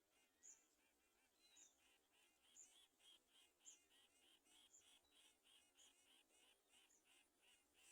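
Faint high-pitched bird chirping: a short chirp about once a second, joined a second or so in by a quicker run of short chirps, about three or four a second.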